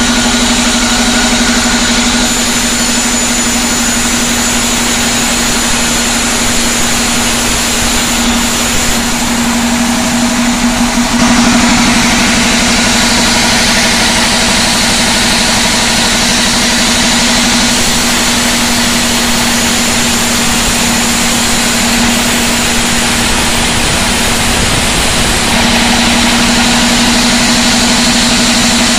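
Large vertical band sawmill running steadily with a constant hum, its blade sawing lengthwise through a jackfruit log; a louder hiss of cutting comes in about eleven seconds in.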